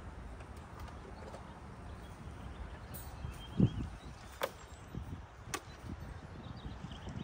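Handling noises from setting up a roof top tent: one dull thump, then a few sharp clicks about a second apart, over a steady low rumble.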